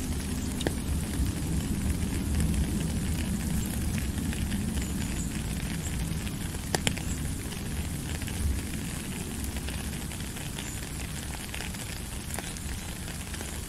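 Steady rain: an even hiss with a low rumble underneath, and a few sharper drops ticking now and then, one about a second in and one near the middle.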